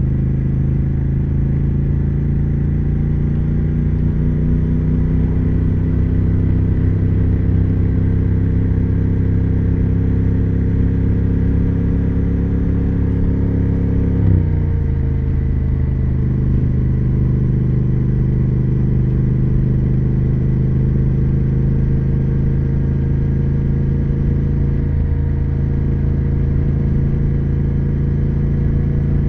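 Triumph Speed Twin 1200's parallel-twin engine and exhaust under way, its note creeping slowly higher, then dropping abruptly about halfway through and holding steady at the lower pitch.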